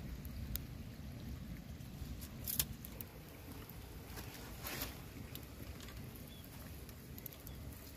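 A sickle blade cutting and shaving bamboo sticks: a few short, sharp scraping strokes, about three, over a steady low rumble.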